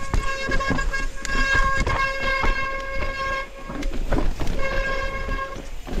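Mountain bike coasting fast over rough singletrack, its rear freehub giving a steady high-pitched buzz while the tyres and frame knock and rattle over the trail. The buzz drops out for about a second midway, then returns.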